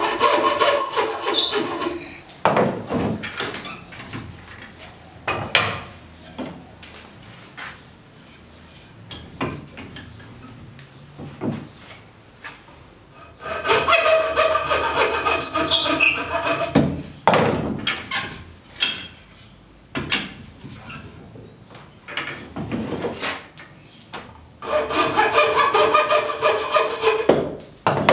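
A hand tool scraping back and forth on a wooden frame clamped in a vise, in three spells of quick strokes: at the start, about halfway, and near the end. Separate knocks and taps come between the spells.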